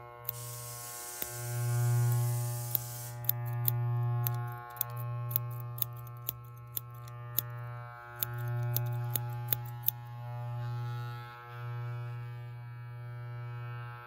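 Electric hair clippers buzzing steadily, the buzz swelling and dipping every second or two as they work. Sharp clicks come and go through the first ten seconds or so, and a hiss runs from about one to three seconds in.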